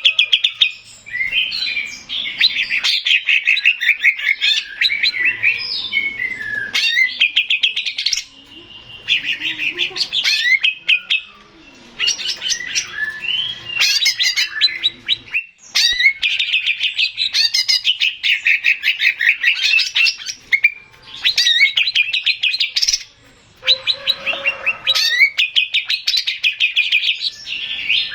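Male green leafbird (cucak ijo) singing: long runs of rapid, varied high notes, broken every few seconds by short pauses.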